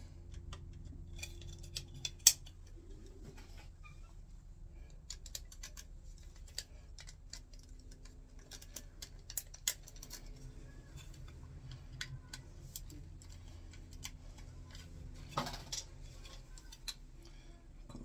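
Small clicks and handling noise of electrical wires and hand tools, a screwdriver and pliers, being worked at a plastic switch back box, with a few sharper clicks, the loudest about two seconds in. A low steady hum runs underneath.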